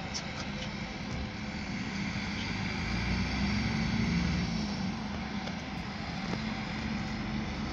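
Coach bus driving past with a low engine rumble that swells about halfway through and then eases off.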